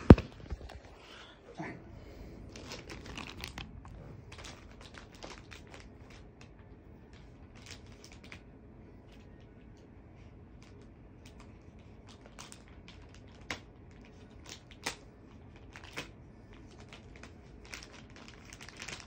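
Plastic packaging rustling and crinkling as a mailed package is handled and opened, with scattered sharp crackles. A single loud knock comes right at the start.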